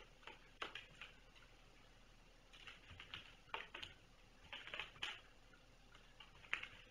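Faint, irregular clusters of soft clicks and taps from kittens moving about, with no steady rhythm.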